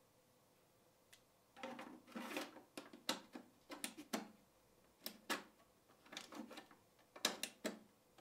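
Hands handling a plastic projector casing and its snap-in fan filter: an irregular run of sharp plastic clicks, taps and short rubbing sounds, starting about a second and a half in.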